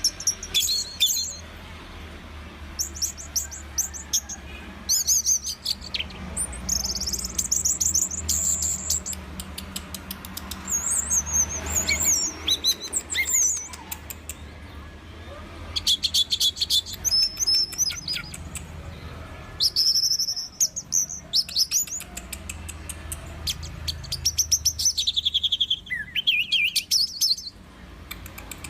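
Orange-headed thrush (anis merah) singing, a varied song of rapid trills, fast repeated notes and whistled phrases delivered in bursts with short pauses. A steady low hum runs underneath.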